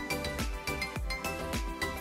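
Background music with a steady beat, about two beats a second, under sustained melodic notes.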